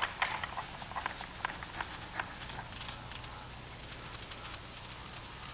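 Two Grant's gazelles fighting: irregular sharp clacks and taps, thinning out after about two and a half seconds, over a faint low hum.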